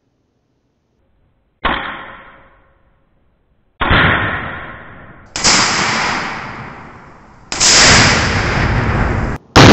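Tannerite explosive target set off by an AR rifle shot, the detonation heard again and again: sudden loud booms about two seconds apart, each fading over a second or two, growing louder toward the end.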